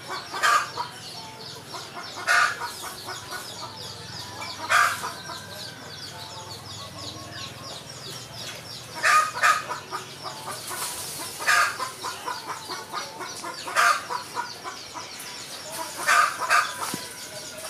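Chickens clucking, short loud calls every couple of seconds, over a continuous high chirping.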